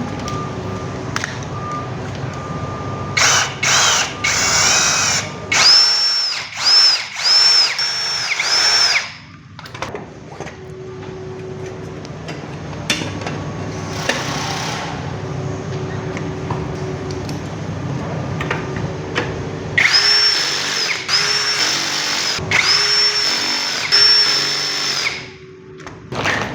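Electric drill-driver driving screws in short trigger bursts, each a high whirring whine. One run of bursts comes a few seconds in and another near the end, with a steady lower hum between them.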